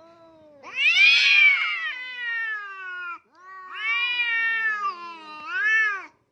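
A cat yowling: three long, drawn-out meows that bend in pitch, the first and loudest lasting over two seconds, the last one short near the end.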